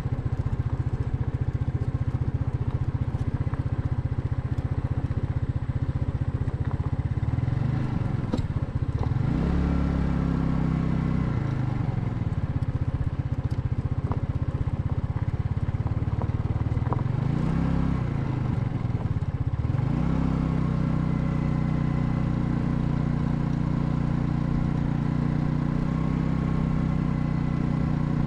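Royal Alloy GT150 scooter's single-cylinder engine running on the move. Its pitch dips and climbs back up twice, about a third of the way in and again around two-thirds through, as the rider eases off and speeds up.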